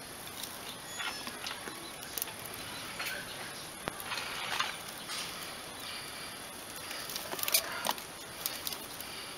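Plastic cord being threaded and pulled tight around bamboo sticks and a metal ring: scattered rustling scrapes and small clicks of the sticks, with a sharper cluster about three quarters of the way through.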